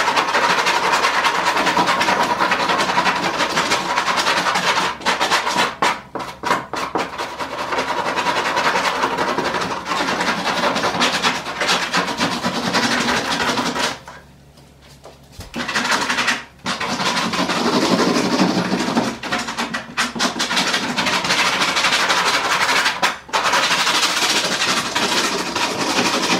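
A small hand brush scrubbing fast against the old headliner board of a 1986 Chevrolet Caprice, scraping off its rotted, crumbling foam backing. The strokes stop for about a second and a half roughly halfway through, then start again.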